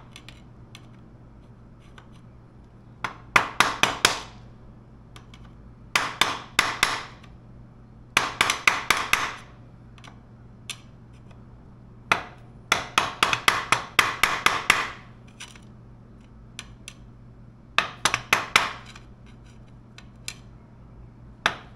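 Hammer tapping a screwdriver against the front sprocket nut's lock washer to bend its folded-over tab back out before the nut is undone. Short runs of rapid sharp metal taps, about six runs with pauses of a few seconds between them and the longest run in the middle.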